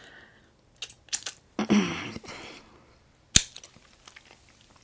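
Handling noises: a few light clicks about a second in, a short rustling noise just after, and one sharp knock a little past three seconds.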